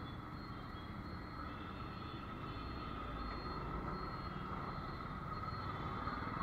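Steady road-traffic noise in slow city traffic, with a scooter engine running at low speed underneath.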